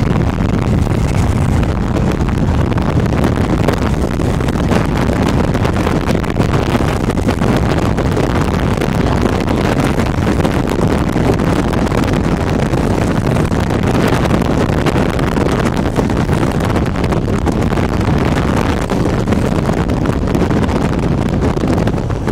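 Strong storm wind buffeting the microphone: a loud, steady rumble.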